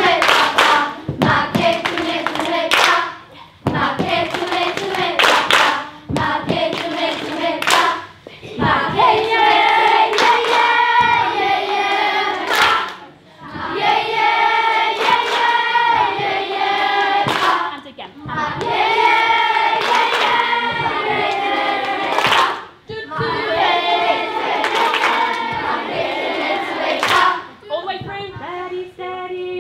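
A group of children singing a song together in short phrases, with hand claps and slaps in time as part of the song's actions.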